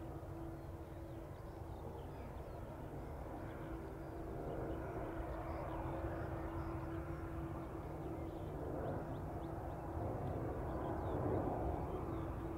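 Boeing 787-9 Dreamliner's GE GEnx turbofans running at low power as the airliner taxis: a steady hum over a low rumble, growing a little louder about four seconds in.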